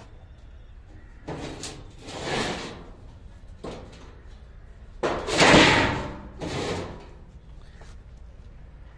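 Sheet-metal barbecue parts being handled: a few rough scraping and sliding noises, the loudest and longest about five seconds in.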